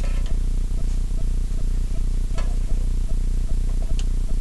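A fork scraping and prying at cheese-stuck nachos in an air fryer basket, a few light scrapes and clicks. Under it runs a steady low electrical hum, which is the loudest sound.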